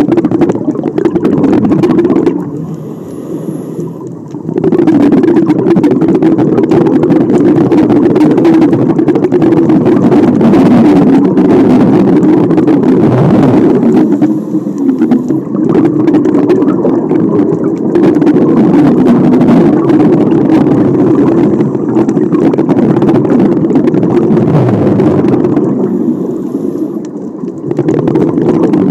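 Scuba diver's breathing underwater: long stretches of muffled rumbling from exhaled bubbles, broken three times by a short, quieter pause with a faint high hiss as the diver breathes in through the regulator.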